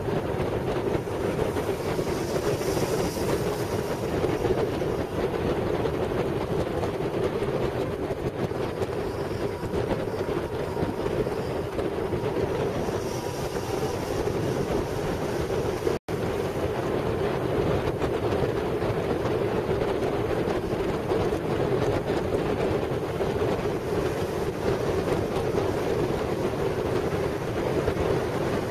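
Steady wind rush and road noise from a motorcycle ride at highway speed, buffeting the microphone, with a constant low drone underneath. The sound cuts out for an instant about halfway through.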